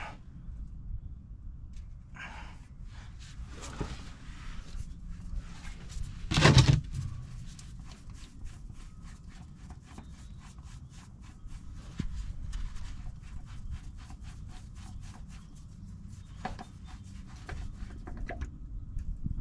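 A rag wiping and rubbing around a truck's oil pan and engine underside, with one loud bump about six and a half seconds in and then a long run of quick, light clicks.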